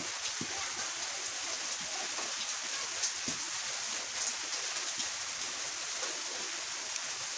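A steady rain-like hiss, with a few light clicks and knocks as metal motorcycle engine parts are handled.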